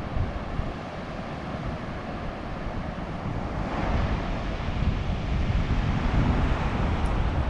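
Wind buffeting the microphone: a steady rush of noise with a gusty low rumble, growing louder about halfway through.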